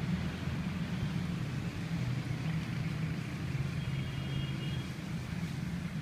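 Steady low rumble of city road traffic, with a faint high-pitched tone for about a second around four seconds in.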